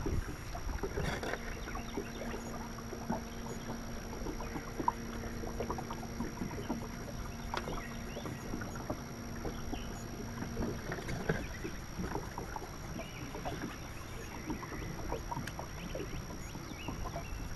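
Bow-mounted electric trolling motor on a bass boat humming steadily, cutting off about two-thirds of the way through, with small water slaps and ticks against the hull throughout.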